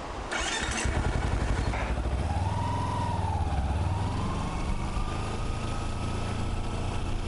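Kawasaki Versys-X 250's parallel-twin engine starting with a short burst of noise about half a second in, then running steadily.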